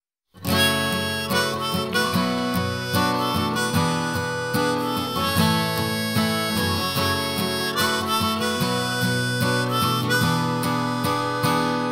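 Harmonica playing a melody over strummed guitar in a song's instrumental intro, starting about a third of a second in.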